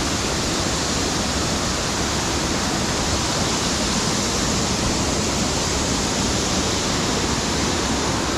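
A waterfall pouring close by: a loud, even, unbroken rush of falling water.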